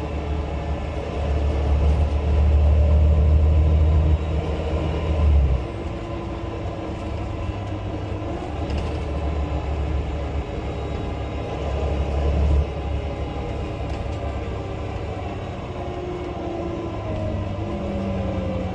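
Volvo B9 bus's diesel engine and drivetrain under way: a deep rumble that swells twice, with a whine that falls in pitch near the end.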